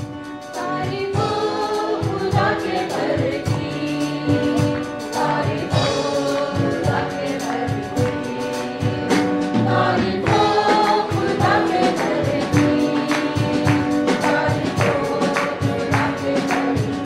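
Mixed church choir of men and women singing a gospel worship song into microphones over instrumental backing with a steady beat; the music swells up about a second in.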